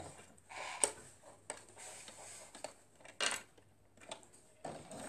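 Soft fabric rustling and a few light clicks as quilting fabric is handled and positioned under a sewing machine's presser foot, ready to sew a seam.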